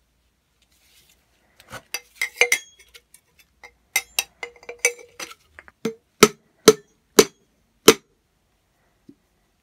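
Brass foot-pump parts clinking and knocking together as they are handled. Then four sharp knocks about half a second apart, from a Thor mallet tapping on the brass barrel.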